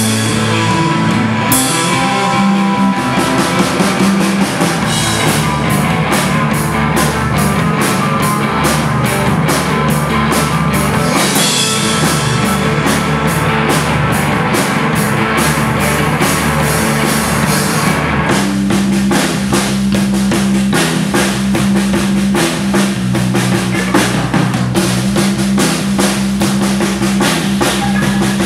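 Live rock band playing loud: a drum kit keeps a steady, fast beat of evenly spaced hits over held, droning bass-guitar notes, and the bass line shifts about two-thirds of the way through.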